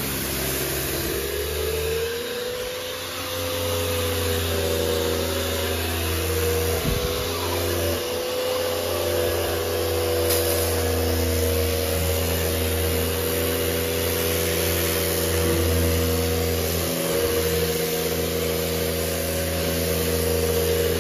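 Kärcher K1900PS electric pressure washer running under load, its motor humming loudly and rising in pitch about a second in before holding steady, with the hiss of the water jet spraying a car.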